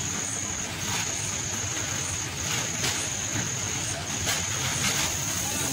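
Busy packing-hall ambience: many workers handling plastic seed bags, with murmured voices in the background and a steady high-pitched whine that breaks off briefly several times.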